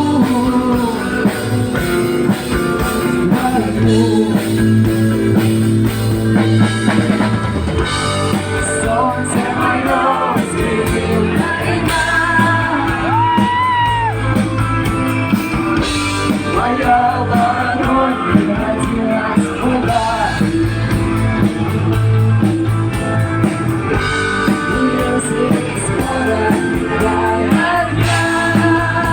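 Live rock-style song with singing, guitar and drum kit, played loud over a PA system.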